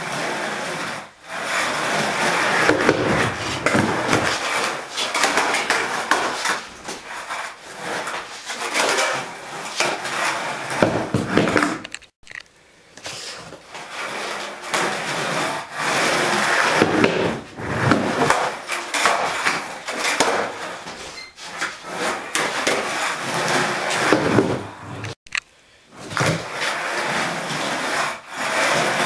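Skateboard wheels rolling on a garage floor, with sharp clacks of the board popping and landing during flatground tricks. The sound breaks off briefly twice, near the middle and a few seconds before the end.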